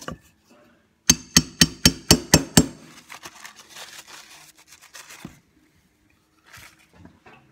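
A hammer tapping the shaft out of an Eaton Model 7 hydrostatic transmission housing: seven quick, ringing strikes in about a second and a half, followed by lighter clicks and knocks of metal parts.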